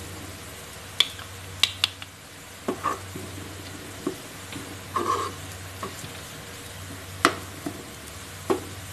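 A steel spoon stirring onion masala as it fries in oil in a frying pan: irregular clinks and scrapes of the spoon against the pan over a steady sizzle.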